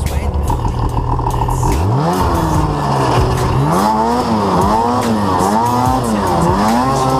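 Snowmobile engine idling, then revved up and down again and again from about two seconds in, about five rising-and-falling revs, while the sled sits bogged in deep snow.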